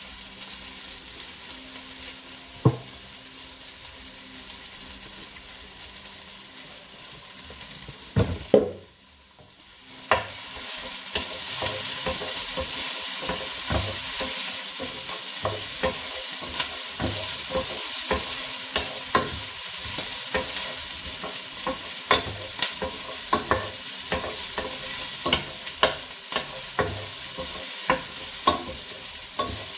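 Onions and garlic frying in a pan with a steady sizzle, stirred with a utensil that clicks and knocks against the pan. A couple of loud knocks come about eight seconds in, then a brief lull, after which the sizzling is louder and full of frequent stirring clicks.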